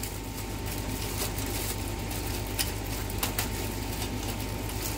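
A steady low mechanical hum with a thin steady whine over it, and light crinkling of a plastic bag being unwrapped from a new pond pump, with a few small clicks.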